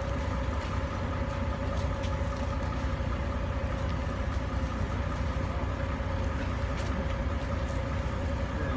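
Heavy diesel engines running steadily: a constant low drone with a steady mid-pitched hum over it and a few faint clicks.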